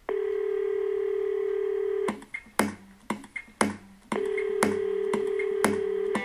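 Telephone dial tone held steady for about two seconds, then a drum beat of regular sharp hits, and the dial tone comes back over the beat about four seconds in.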